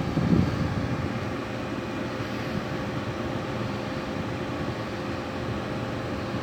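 Air conditioning unit running steadily: fan air noise over a constant motor hum. A short low bump comes near the start.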